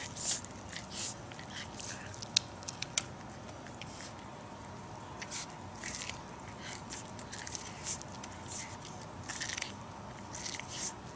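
Cat biting and chewing kernels off a corn cob held close to the microphone: irregular short bites, sometimes several in quick succession, with a couple of sharp clicks between two and three seconds in that are the loudest sounds.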